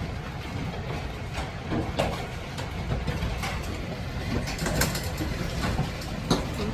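Hailstorm: a dense, steady roar of hail and rain, with many irregular sharp cracks of individual hailstones striking hard surfaces.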